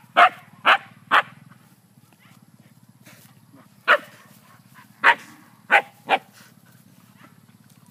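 Siberian husky barking in short sharp barks: three quick barks at the start, then four more spaced out from about four seconds in.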